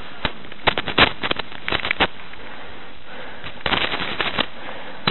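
Crackling, popping noise on a small camera's microphone, the kind made by wind buffeting and handling. It comes in three clusters, about a second in, around two seconds in and near the end, with a steady hiss between.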